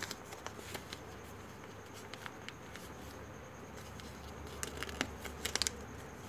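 Sheet of computer paper being folded and creased by hand: faint scattered crackles and taps, a few louder ones about five seconds in, over a low steady hum.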